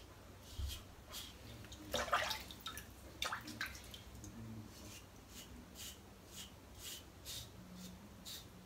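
Short scraping strokes of a single-edge safety razor cutting through lather and stubble on a scalp, about two strokes a second, a few louder ones around two to three and a half seconds in.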